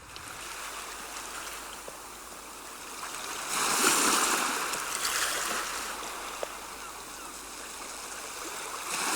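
Water of a stream flowing, a steady rushing that swells louder for a couple of seconds near the middle.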